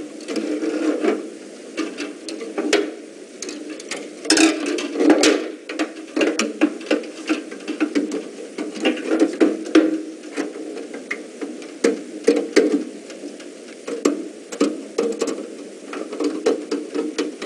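Electrical wire being handled and pushed into place inside a steel breaker panel: a string of irregular clicks and taps with rustling and scraping between them.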